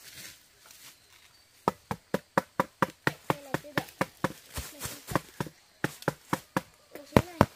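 Rapid, even chopping strikes, about four a second, starting a little under two seconds in and briefly pausing about halfway through.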